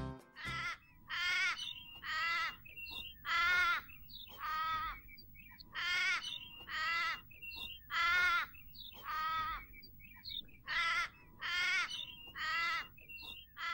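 A series of about fifteen harsh, wavering animal calls, each under half a second long, coming in loose runs of two or three with short quiet gaps between them.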